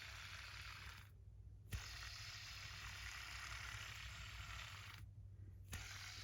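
Tungsten fidget spinner spinning on its bearing: a faint, steady whir that drops out briefly twice, each time ending with a small click.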